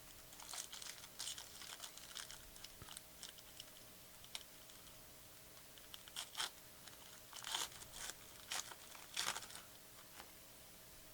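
Faint crinkling and tearing of a foil trading-card pack wrapper, in two spells of short crackles.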